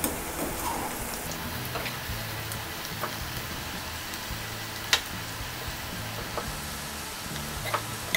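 Onion pakodas deep-frying in hot oil in a kadai, a steady sizzle, while a perforated slotted spoon stirs them, with a few sharp clicks of the spoon against the pan.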